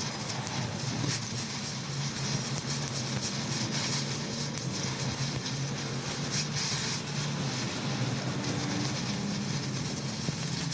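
Machinery running steadily: a constant low hum under a broad hiss.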